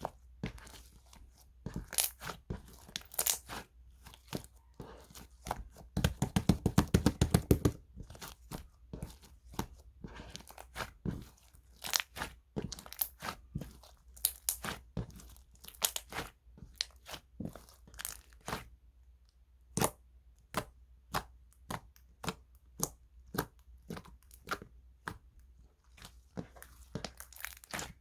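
Slime being squeezed and stretched by hand, giving off scattered sharp crackling pops. About six seconds in there is a quick run of louder pops lasting a second or two.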